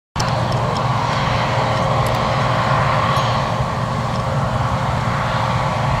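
JCB 4220 Fastrac tractor driving along towing a grain trailer, its engine running with a steady drone. A few light clicks come in the first second.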